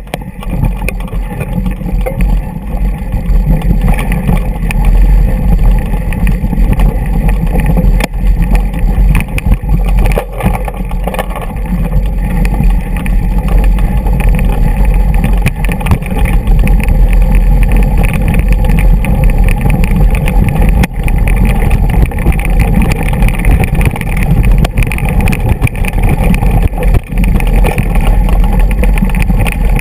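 Mountain bike rolling down a rocky trail, heard through a bike-mounted GoPro: a loud steady rumble of tyres on loose stones and wind on the microphone, with frequent rattles and knocks as the bike jolts over rocks.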